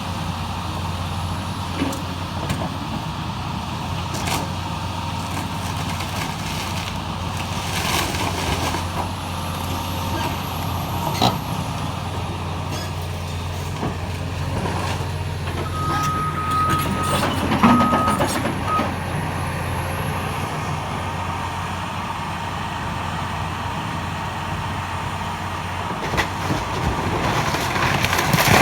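Heavy diesel demolition machinery running steadily, with scattered knocks and clanks. A reversing alarm beeps briefly a little past the middle.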